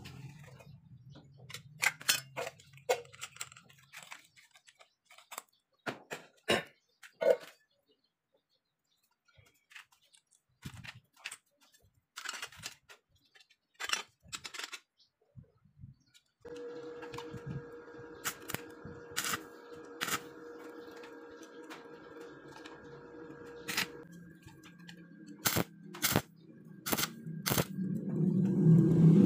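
Scattered clinks and knocks of steel plate, grinder and small parts being handled and fitted together. From about halfway a steady hum sets in under further clicks. Near the end a stick-welding arc starts crackling loudly.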